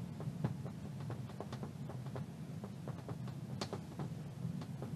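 Marker pen writing on a glass board: faint, scattered short taps and squeaks of the tip against the glass, over a low steady hum.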